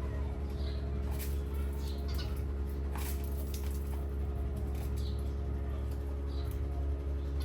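Parrots chirping softly in short, high squeaks, about one or two a second, with a few faint clicks, over a steady low hum.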